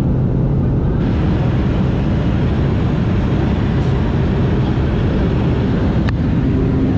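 Steady roar of a light aircraft's engine and propeller, heard from inside the cabin during the climb, with a brighter rush of air after about a second. A single sharp click about six seconds in.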